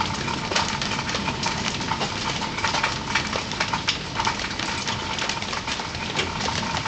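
Steady rain falling, with many irregular drips and taps of water.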